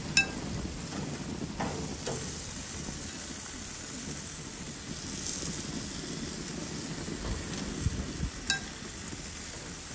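Jerk chicken sizzling on a grill, a steady hiss, with two sharp metallic clinks: one right at the start and one about eight and a half seconds in.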